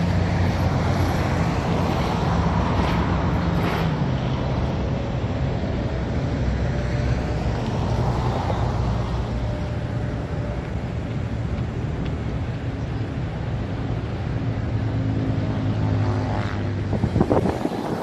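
Steady motor-vehicle noise: a low engine hum from vehicles running close by over a wash of traffic.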